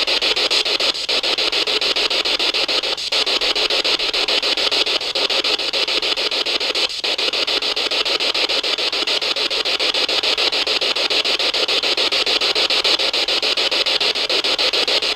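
Steady radio static hiss from a spirit box sweeping through stations, finely chopped at a fast, even rate, with short dropouts about one, three and seven seconds in.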